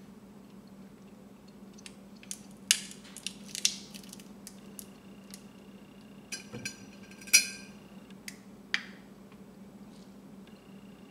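Scattered clicks and clinks of metal pliers and glassware as a dried corn cob is handled: a dozen or so sharp knocks, the loudest about seven seconds in with a brief glassy ring. A low steady hum runs underneath.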